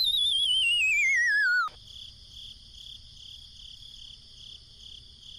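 Cartoon sound effects: a wobbling whistle slides down in pitch for about a second and a half and cuts off. High cricket-like chirping follows, pulsing two or three times a second.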